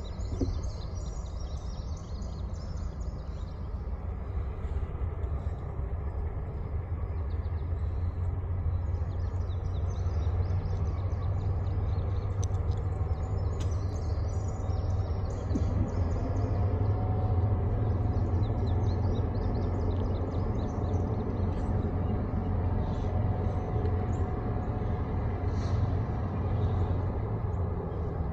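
Distant diesel freight locomotive approaching on the Finger Lakes Railway line, a low steady rumble that grows louder about halfway through, with birds chirping.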